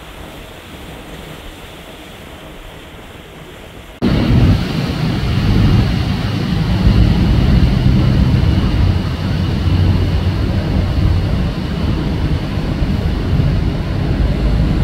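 Wind buffeting the microphone over the rush of a pilot boat's wake at sea, with a low engine drone underneath. It jumps abruptly much louder about four seconds in.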